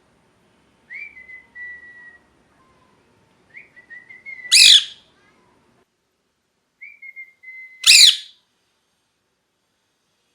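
Pet Indian ringneck parakeet calling. It gives soft, level whistled notes, two of which lead straight into a loud, harsh screech. There are two screeches, a little over three seconds apart.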